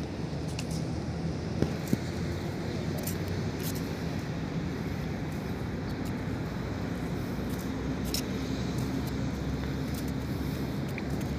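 Steady low hum of distant engines, with two short knocks a little under two seconds in.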